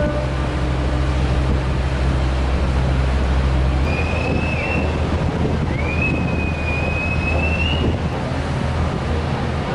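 Harbour ambience from the open deck of a ship: a steady low rumble with wind and water noise, which changes at a cut about four seconds in. Two thin whistling tones come between about four and eight seconds, the second longer and slightly rising.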